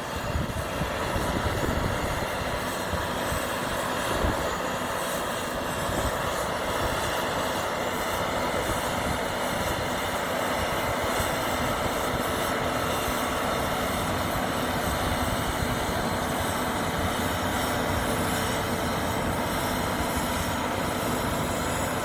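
Mount Washington Cog Railway train running on its rack track, a steady mechanical noise with a faint hum.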